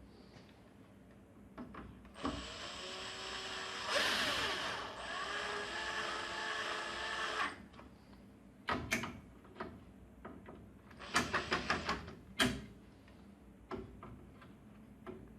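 An electric screwdriver runs for about five seconds, its pitch shifting as it drives screws, followed by a series of sharp clicks and knocks of hardware being handled.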